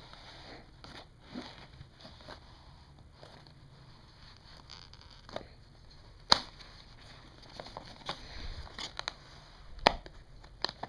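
A cardboard toy box being handled and its end flap pried open by hand: faint scraping and rustling of card with scattered small clicks, two of them sharp and loud, about six seconds in and near the end.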